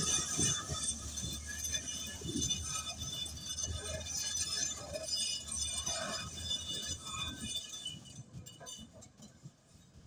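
Komatsu crawler bulldozer pushing soil: a low diesel engine drone under the clinking and squealing of its steel tracks, growing fainter near the end.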